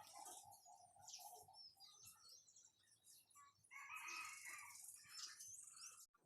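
Faint bird calls and chirps: a held, wavering call in the first second or so, short high chirps and whistled glides throughout, and a louder burst of calls about four seconds in.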